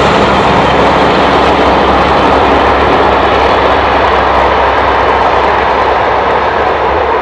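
Diesel locomotive working hard under power, its engine loud and steady, the sound beginning to fall away near the end.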